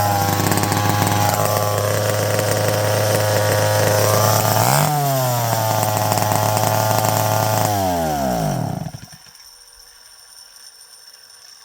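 McCulloch Pro Mac 55 two-stroke chainsaw idling steadily, running on its first start in years after carburetor work. A quick rev just before halfway rises and falls back to idle. The engine is switched off about nine seconds in and winds down to a stop.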